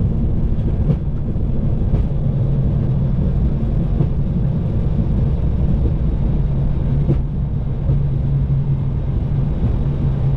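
Steady low rumble inside a Boeing 737-800's flight deck as the airliner rolls slowly after landing, its engines at idle, with a steady hum and a few faint clicks.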